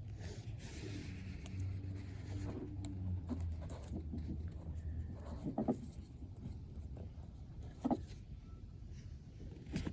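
Hands handling tape and seatbelt buckle parts: rustling and scraping of tape being wrapped, with a few short knocks, under a steady low hum.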